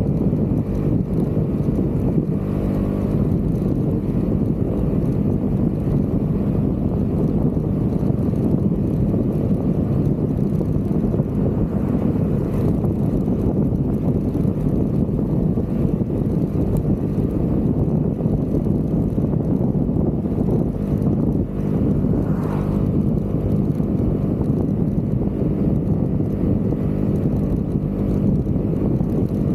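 Vespa GTV 300 scooter's single-cylinder engine running steadily on the move, with wind noise on the microphone.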